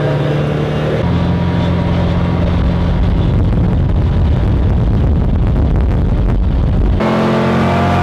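Car driving on a dirt road, heard from inside the cabin: a steady engine drone with low tyre and road rumble. The sound changes abruptly about a second in and again near the end.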